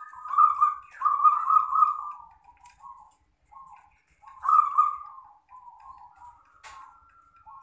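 Zebra dove (perkutut) cooing: a string of soft, low-pitched coos. The strongest come about half a second in, around a second in and about four and a half seconds in, with shorter, fainter notes between.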